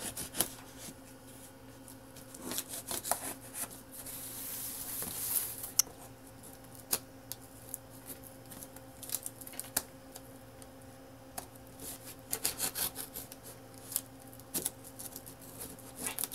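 Small knife blade cutting and scraping at packing tape on a cardboard box: scattered clicks and scrapes, with a longer hissing slice about four to five and a half seconds in and a quick run of clicks near the end.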